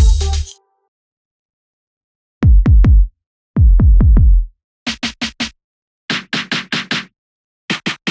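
Electronic dance drum-machine sounds from the EZdrummer 3 Dance EZX kit. A full beat stops about half a second in. After a pause come two groups of deep electronic kick drums, each falling in pitch, and then quick runs of short, snappy snare or clap hits.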